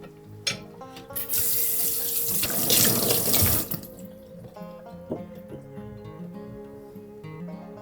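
Kitchen tap running into the sink for about two and a half seconds, then shutting off, with a few light knocks around it, over soft background music.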